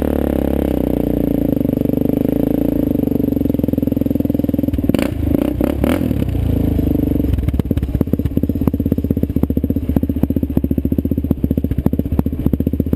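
Sport quad's engine running hard as it spins through sand, with a few sharp knocks about five to six seconds in. From about seven seconds the note turns choppy, a fast run of separate pulses.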